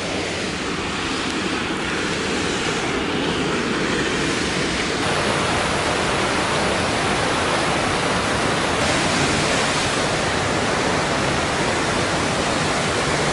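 Waterfall crashing down in a steady, loud rush of water, getting fuller and a little louder about five seconds in.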